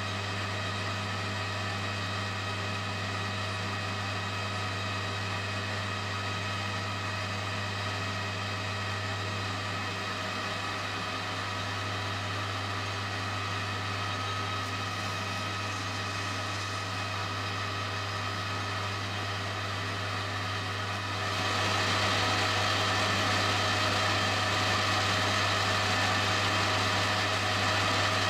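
Metal lathe running steadily while a hand-guided tracing tool turns an aluminium spinner, with a constant motor hum under it. About 21 seconds in the sound gets louder and brighter.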